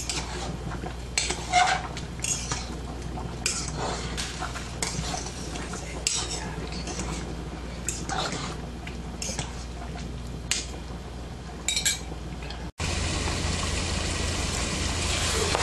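A metal utensil stirring spaghetti in a stainless-steel saucepan, with repeated clinks and scrapes against the pot. About thirteen seconds in it cuts to seasoned ground beef frying in a pan, a steady sizzling hiss.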